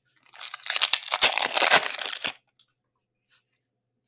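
A foil trading-card pack being torn open, the wrapper crackling and crinkling for about two seconds before it stops.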